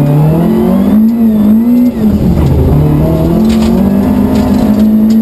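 Rally car's engine heard from inside the cabin, revving up hard under acceleration. About two seconds in the revs drop briefly at a gear change, then climb again and hold high.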